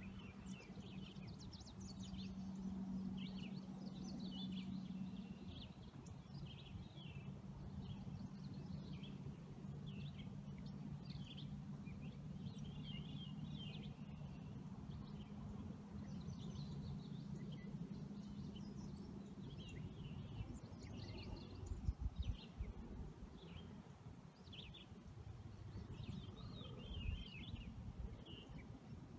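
Quiet ship-interior room tone: a steady low hum with scattered faint, short, high-pitched squeaks and creaks, and a few soft thumps about three quarters of the way through.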